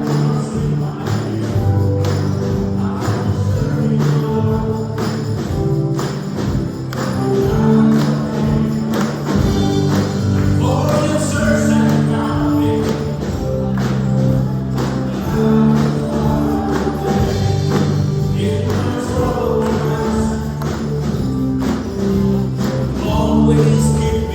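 Upbeat worship music with a steady beat and tambourine, with voices singing in the middle and again near the end.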